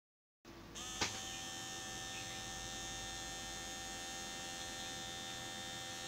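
Small DC motor of a homemade mini blender switched on with a sharp click about a second in, then running steadily with a constant hum and several steady high tones. A split second of dead silence comes first.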